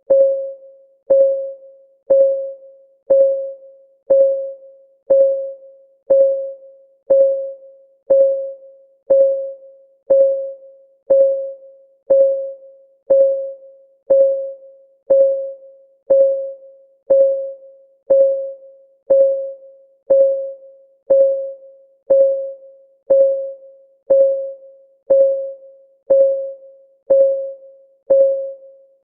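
Countdown timer's ticking sound: one short, pitched tick every second at the same mid pitch, each ringing out briefly before the next.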